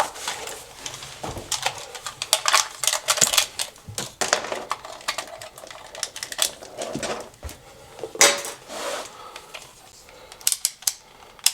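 Hard plastic and metal tools clicking and clattering as a meter is picked up and handled, with a longer rustle about two-thirds of the way in.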